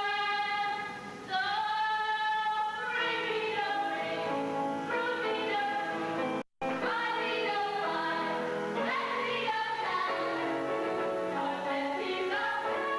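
Music with women singing in long held notes. The sound drops out for a split second about halfway through.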